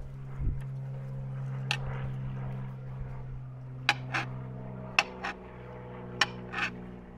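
Chef's knife slicing an avocado, the blade knocking on a cutting board about seven times at uneven intervals, several in quick pairs. A steady low hum runs underneath.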